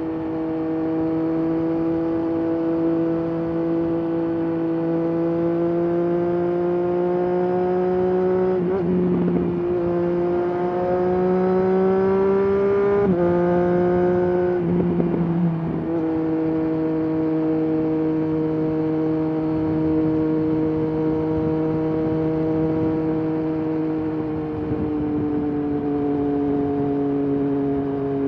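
Triumph Daytona 765 Moto2's inline-three engine and exhaust under way. Its pitch climbs slowly, breaking briefly about a third of the way in and again around halfway, then eases down gradually as the bike settles into a steady run.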